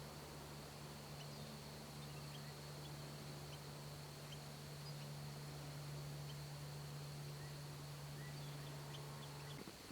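Quiet field ambience with scattered faint, short bird chirps over a steady high insect-like tone, and a steady low hum that cuts off suddenly just before the end.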